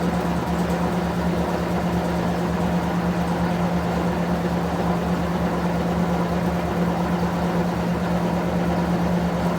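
Electrolux Prosdócimo washing machine running: a steady motor hum with a fast low pulsing underneath, unchanged throughout.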